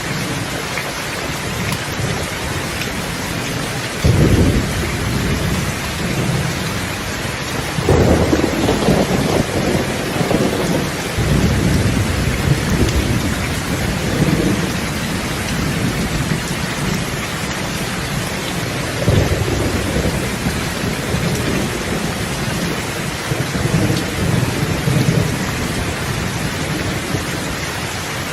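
Thunderstorm: steady rain hiss with rolling thunder. A sudden rumble comes about four seconds in, a longer one rolls on from about eight seconds in for several seconds, and weaker rumbles follow later.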